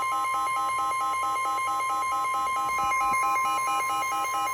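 Emergency Alert System tornado-warning alarm: the steady, high weather-radio warning tone, with a rapid electronic beeping of about five beeps a second laid over it.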